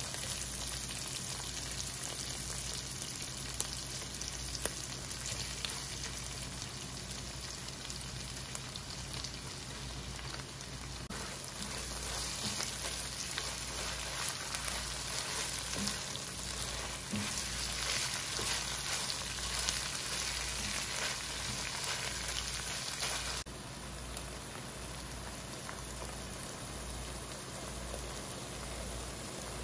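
Ground beef with onions and green peppers sizzling steadily in a frying pan, stirred with a spatula that clicks against the pan now and then as tomato paste is worked in. The sizzle is louder through the middle stretch.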